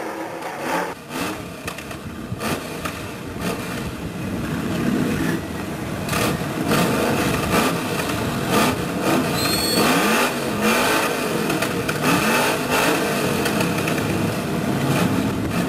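Stock car V8 engines revving up and down again and again, the pitch rising and falling in repeated sweeps. A brief high-pitched squeal comes about nine and a half seconds in.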